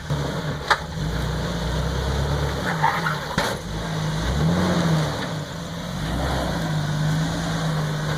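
Lifted Jeep's engine revving up and down in short pulls while crawling over an obstacle, with two sharp knocks along the way.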